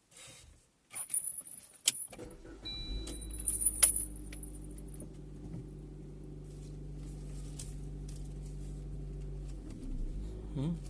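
Car keys jangle and click in the ignition. About two seconds in, the Maruti Suzuki Ertiga's four-cylinder engine starts and settles into a steady idle, with a brief high tone just after it catches.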